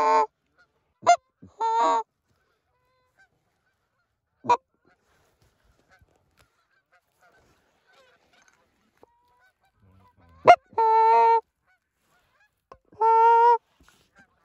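Goose honking at intervals: four drawn-out honks of steady pitch and three short, sharp clucks, with long gaps between.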